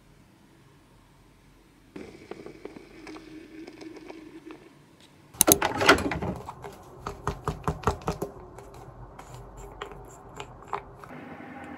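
Quiet at first, then soft handling sounds. About five seconds in, loud fabric rustling as a jacket is put on and adjusted, followed by a run of small clicks and taps from handling a plastic sunscreen tube and its cap.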